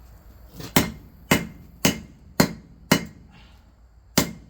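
Hand hammer striking cold metal on an anvil: six ringing blows at about two a second, with a short pause before the last. This is cold forging, working the metal without heating it.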